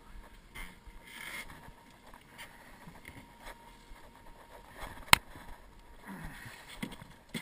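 Scattered knocks, rustles and footsteps of a person moving about a fishing boat's deck while handling a fish and gear, with one sharp click about five seconds in, the loudest sound.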